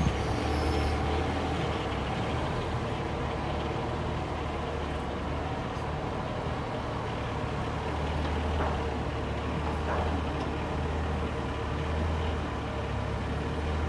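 Takeuchi TB216 hybrid mini excavator running steadily with a low hum while its hydraulics swing and lift the boom.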